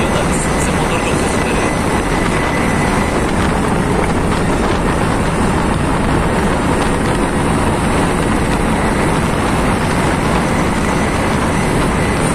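Steady, loud driving noise heard from a car moving at speed: engine, tyre and wind noise with no clear revving.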